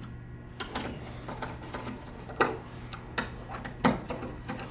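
Hand screwdriver tightening the mounting screws of a door lock's metal back plate: small irregular clicks and ticks, with a few sharper clicks toward the middle and the end, over a steady low hum.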